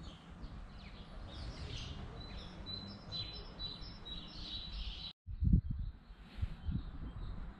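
Small songbirds chirping and twittering over a low rumble. About five seconds in the sound drops out for a moment, and a few loud low thumps follow.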